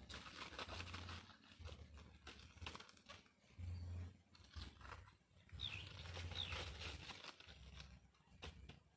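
Dry banana bracts rustling and crackling faintly as they are handled and pressed into place on a mushroom bed, in irregular bursts with short pauses.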